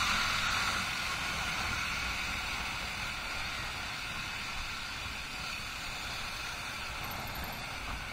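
Wind rushing over the camera microphone on a moving Yamaha R15 V3 motorcycle, with the bike's 155 cc single-cylinder engine running underneath at about 50 km/h.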